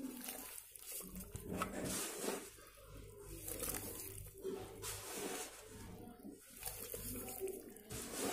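Dry sand pouring in thin streams into a basin of water, a soft hissing patter that swells and fades with each pour.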